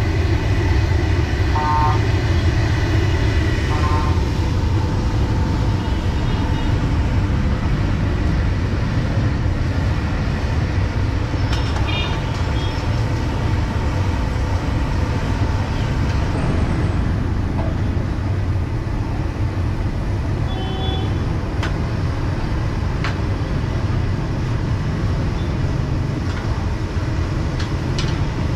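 Steady low roar of a multi-jet gas burner firing under a large kabab pan. Short horn toots sound a few times over it.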